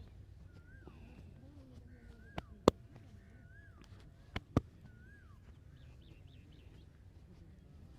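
Joints cracking during a massage: two pairs of sharp pops about two seconds apart, the first pair the louder. A bird's short swooping chirp repeats about once a second in the background.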